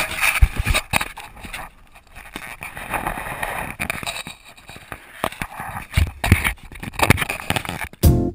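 Wind noise on a small action camera's microphone, with irregular dull thumps and knocks as bare feet step along the wooden rail the camera is fixed to. Music with a steady beat starts right at the end.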